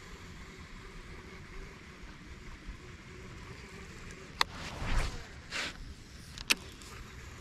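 Baitcasting rod and reel being handled: two sharp clicks and a couple of short knocks over a faint low rumble of wind and water.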